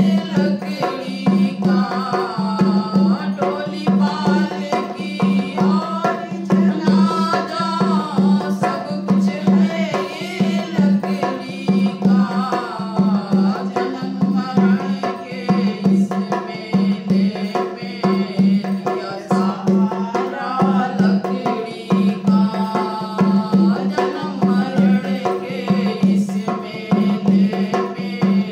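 Dholak played in a steady rhythm, its low head sounding on each beat, with a woman singing a Hindi bhajan over it.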